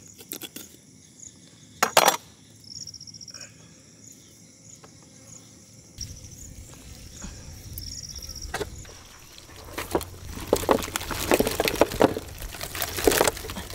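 Wet tearing, crackling and squelching as a whole roasted stuffed lamb is cut open with a knife and the crabs and lobsters cooked inside it are pulled out, growing busy from about ten seconds in. A single sharp crack about two seconds in. Short insect trills sound now and then in the quieter first half.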